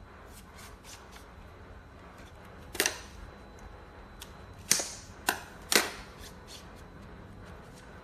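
A few sharp clicks or knocks: one about three seconds in, then three more close together around five seconds in, with fainter ticks between, over a faint steady background.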